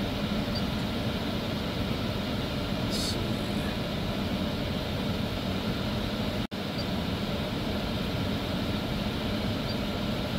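Steady low hum and hiss of a car cabin, with the sound cutting out for an instant about six and a half seconds in.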